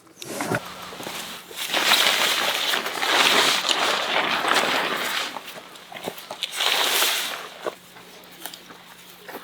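Shelter fabric rustling and crinkling in two long stretches as it is handled during tent and tarp setup, with scattered light clicks and taps.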